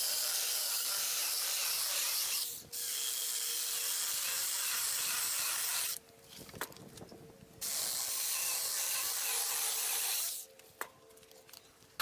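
Small one-handed battery-powered chainsaw cutting through a dead branch. It runs steadily in three cuts: a brief stop about two and a half seconds in, a longer pause with a few clicks around six to seven and a half seconds, and it stops about ten seconds in.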